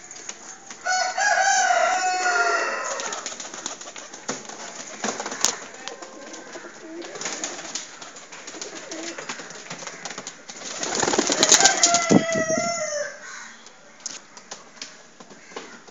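Pigeons cooing, with two louder drawn-out calls that fall in pitch, one about a second in and another about eleven seconds in, over scattered small clicks and taps.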